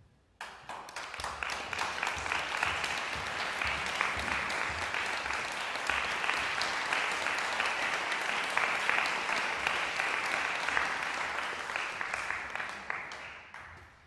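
Audience applause, starting suddenly about half a second in, holding steady, then dying away near the end.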